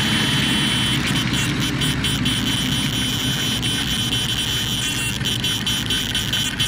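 A motor running steadily, with a low hum.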